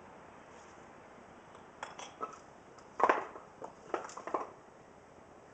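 Rocks knocking and clacking against each other as they are set in place, a string of sharp knocks starting about two seconds in, the loudest a second later.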